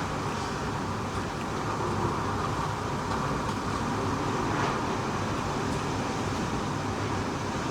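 Typhoon-force wind blowing steadily over the city, a continuous even rushing noise with no let-up.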